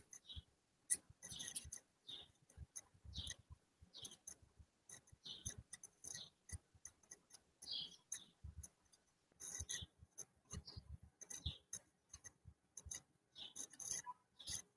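Faint, irregular clicks and light rustles, several a second, with no voice.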